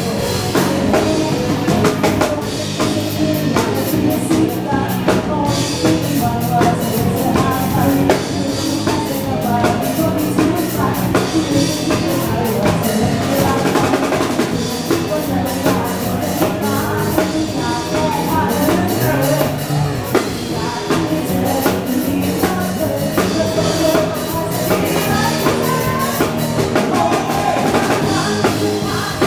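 Live band playing upbeat Thai dance music with a steady drum-kit beat, bass and singing.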